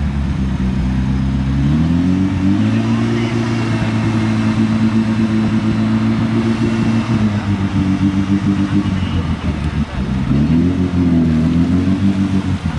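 Off-road 4x4's engine running under load and revving: the pitch climbs about two seconds in, holds high, drops near ten seconds, then climbs again.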